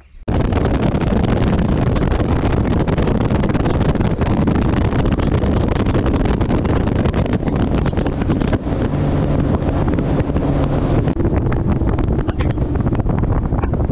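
Bass boat running at speed on the outboard: heavy wind buffeting the bow microphone, with the motor's steady hum underneath. It starts abruptly just after the start.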